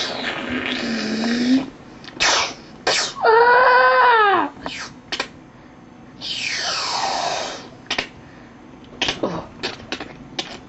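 Mouth-made spaceship sound effects: hissing whooshes, a rising-then-falling whine, a long falling whoosh, and a string of short puffs near the end.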